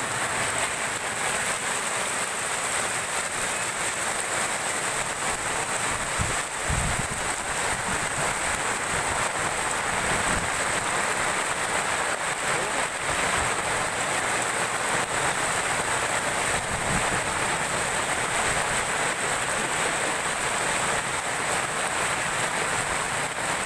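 Heavy rain pouring down steadily in a rainstorm, with a brief low rumble about six seconds in.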